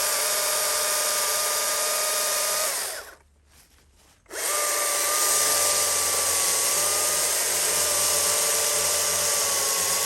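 Chainsaw running at full throttle, cutting through a log with a steady high-pitched engine note. About three seconds in the sound dies away for about a second, then comes back at full throttle.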